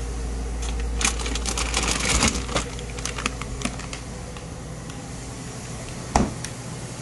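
Plastic bag of apples crinkling and rustling as it is pulled out of a refrigerator, over a steady low hum. The fridge door shuts with a single thud about six seconds in.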